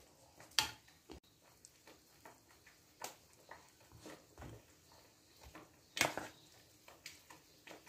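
Faint, scattered taps and light scrapes of a spoon and biscuits against a cut-glass bowl as chocolate mixture is spread over a layer of Marie biscuits. The clearest taps come about half a second, three and six seconds in.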